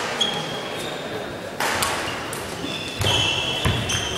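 Badminton rally echoing in a sports hall: sharp racket strikes on the shuttlecock about every one and a half seconds, and players' court shoes squeaking on the floor, the squeaks loudest near the end.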